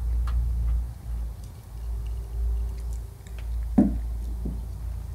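Light clicks and taps of metal hardware as a hood latch is fitted to the front end of a 1976 Chevy C10, with one sharp knock nearly four seconds in, over a low steady rumble.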